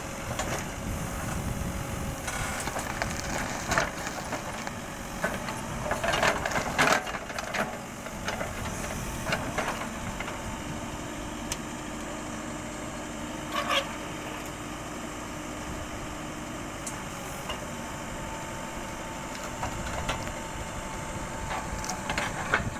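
Mahindra EarthMaster VX backhoe loader's diesel engine running as the backhoe bucket rips out tree stumps, with roots and wood cracking and snapping. The cracking is loudest about six to seven seconds in and again near fourteen seconds.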